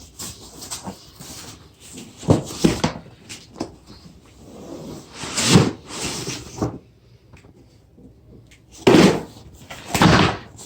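Packaging being handled during an unboxing: rustling and scraping with a few sharp knocks. There are two knocks about two seconds in, then longer rustling swells near the middle and again near the end.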